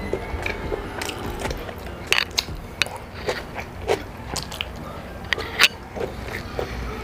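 Close-miked eating sounds of a rice-and-meat breakfast being eaten: chewing and wet mouth smacks with irregular sharp clicks, one louder click about five and a half seconds in.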